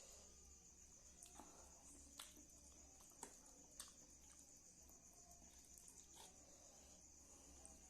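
Faint eating sounds: about five soft clicks and smacks. Behind them runs a steady high cricket trill.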